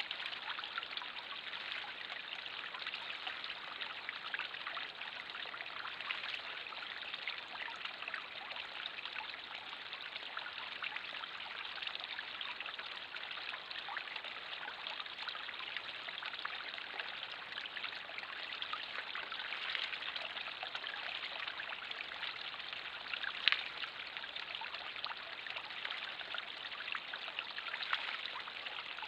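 Garden pond waterfall: water spilling steadily from a spillway into the pond, with a small fountain bubbling, an even splashing trickle. One brief louder tap stands out about three-quarters of the way through.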